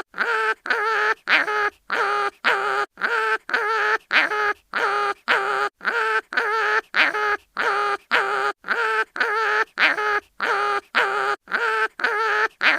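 Cartoon animal crying-in-pain sound effect: short, high, wavering cries repeated in a fast loop, about two a second, with brief gaps between them.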